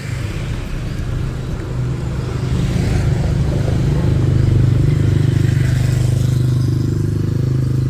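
A motor vehicle's engine running close by in street traffic: a steady low hum that grows louder about two seconds in and stays strong, as if the vehicle is passing slowly or idling near the microphone.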